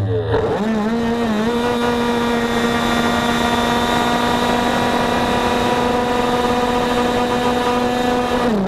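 70cc two-stroke Minarelli scooter engine with an expansion-chamber exhaust at full throttle on a drag launch. Its pitch climbs and wavers for the first second and a half, then holds one steady high note while the speed keeps rising, the variator keeping the engine at peak revs. The pitch drops off near the end as the throttle closes.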